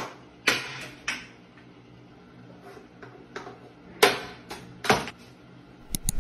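A cat batting at a toilet paper roll on a tiled ledge: about seven short scuffs and knocks at irregular intervals, over a faint steady low hum.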